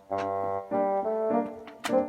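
Background music: sustained keyboard and brass-like chords with a few percussive hits.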